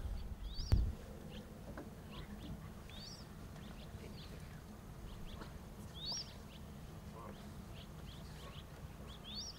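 Birds calling: one short, high call repeated four times, about every three seconds, among scattered faint chirps. A single sharp knock with a low thump comes just under a second in.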